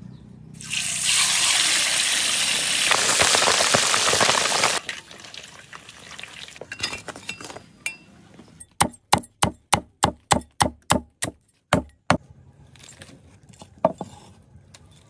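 A pork head lowered into a wok of hot oil sets off a loud deep-frying sizzle that lasts about four seconds. After a quieter stretch comes a run of about a dozen sharp, evenly spaced chops, about three a second, as the crisp fried pork is cut up, then a few scattered knocks.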